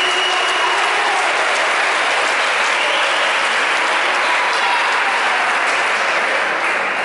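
Spectators applauding steadily after a point in a table tennis match.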